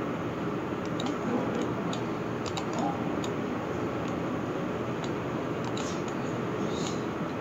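Scattered light clicks of a computer mouse and keyboard at irregular moments, several close together about two and a half seconds in, over a steady background hiss.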